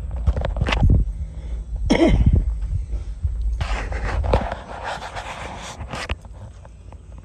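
A person breathing hard close to the microphone, with rustling and bumps as the phone is moved about, over a low rumble of wind on the microphone.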